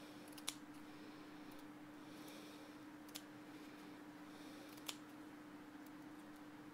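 Small scissors snipping through garlic netting stiffened with aluminium paint: a few quiet cuts, each ending in a sharp click, the clearest about half a second, three and five seconds in.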